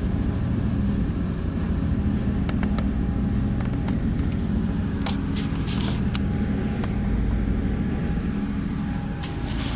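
Boat engine running steadily under way in rough water, a low drone, with a few sharp knocks and splashes as the hull meets the waves.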